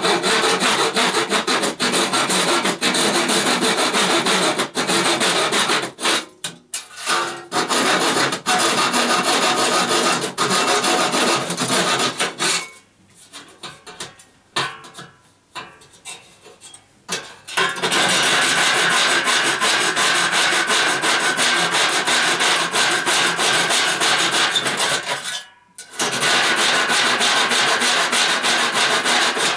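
Small hand saw rasping back and forth through the thin aluminium tabs that hold a panel in an R2-D2 dome skin, in rapid strokes. It stops briefly twice and for several seconds in the middle.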